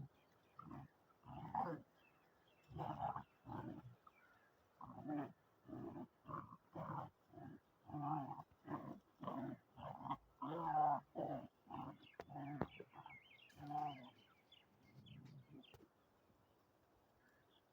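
A dog making a long series of short vocal calls, about two a second, that stop about three-quarters of the way through, with one fainter call after.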